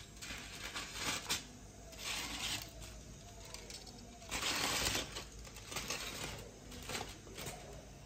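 Aluminium foil crinkling and tearing as it is cut and pulled open over a metal baking tray, in several short bursts, the loudest about halfway through.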